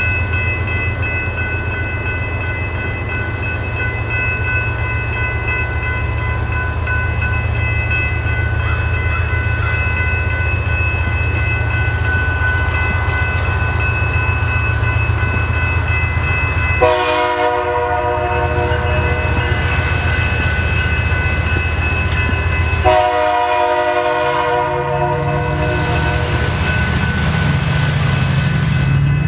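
Diesel freight locomotives running with a steady low rumble, then the locomotive horn sounds two long blasts, the first about 17 seconds in and the second straight after it. During the second blast the engine note rises as the train pulls away.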